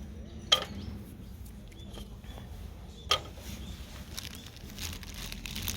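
Two sharp clinks, about two and a half seconds apart, from gear being handled, followed by a run of lighter clicks and taps near the end.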